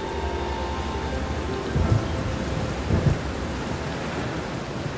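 Steady rain with low rumbling thunder, swelling louder twice, about two and three seconds in.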